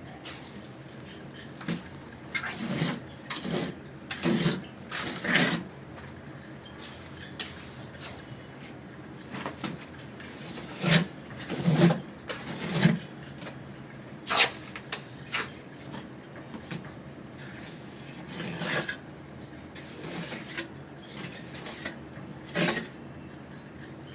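Irregular knocks, clicks and scrapes of hand work on plumbing, with a cluster of heavier knocks about halfway through and sharp clicks a little later.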